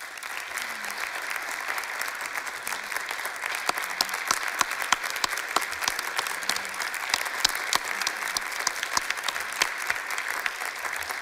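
An audience applauding, a steady dense clapping with some sharper single claps standing out.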